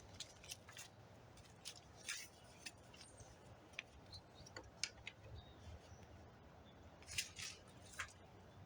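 Faint handling noises: scattered small clicks and a few short rustles of adhesive tape and a plastic door handle cover being worked by hand.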